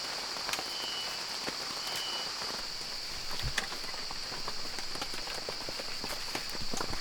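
Rain falling, with scattered drops clicking and pattering over a steady high-pitched hiss. Two short high chirps sound about a second and two seconds in, and a dull low thump comes midway.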